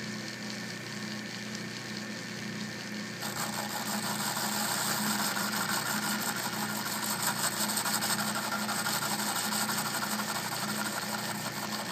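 Atlas metal lathe running with a steady hum; about three seconds in, a boring bar starts cutting into the metal workpiece in the four-jaw chuck, adding a steady hiss that lasts to the end.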